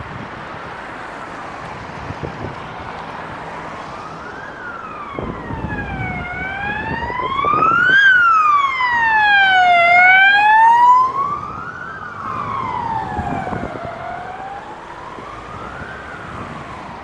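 Emergency vehicle siren wailing in slow rising and falling sweeps, about two seconds up and two seconds down. It is faint at first, grows loudest around the middle, then fades away, over the steady road noise of the car.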